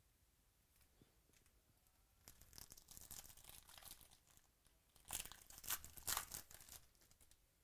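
A foil trading-card pack wrapper (2017 Rookies & Stars football) being crinkled and torn open by hand. The crinkling starts about two seconds in, and a louder burst of tearing comes around five to seven seconds in.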